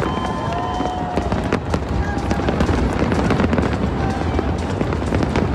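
Fireworks going off in a dense, rapid crackle of many small pops, with no single big boom standing out.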